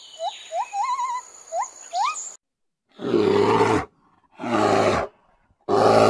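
Monkeys giving a string of short, high calls that rise in pitch, some wavering, for about two seconds. Then a bear lets out three loud, deep roars, each just under a second long with short gaps between.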